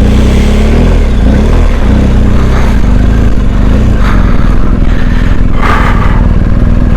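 BMW R1250 GS Adventure's boxer-twin engine running at low revs while riding off-road; its pitch wavers in the first couple of seconds, then holds steady.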